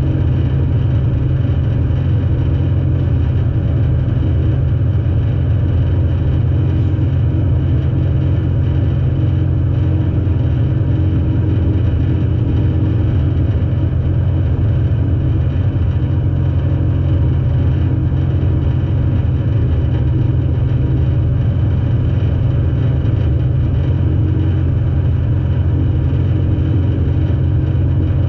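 Demolition derby car's engine idling steadily, a loud, even low rumble heard from inside the stripped-out cabin.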